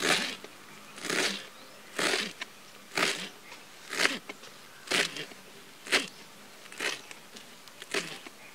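Knife chopping through a bunch of fresh coriander stems on a plastic cutting board, one cut about every second, nine in all.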